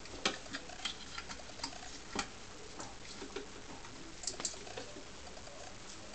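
Irregular small plastic clicks and taps as a dash camera and its cable plugs are handled, the loudest near the start and about two seconds in, with a quick pair of clicks a little after four seconds.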